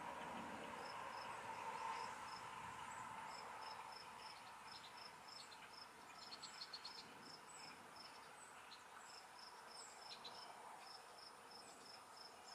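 Insect chirping in a steady rhythm, about three short high chirps a second, over a faint steady hiss.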